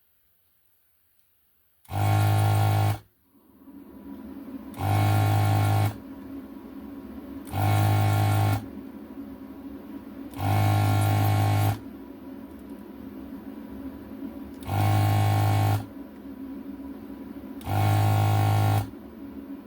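Electric desoldering tool's vacuum pump buzzing in six bursts of about a second each, roughly every three seconds, as solder is sucked off the LCD's pins. A steadier, quieter hum from the rework station starts a few seconds in and runs between the bursts.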